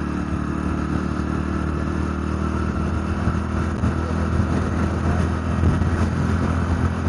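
Motorcycle engine running steadily while cruising at road speed, with a constant rush of wind and road noise.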